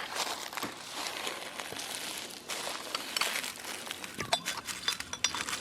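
Crinkling and rustling of roadside trash being handled and bagged, with scattered sharp clicks through it.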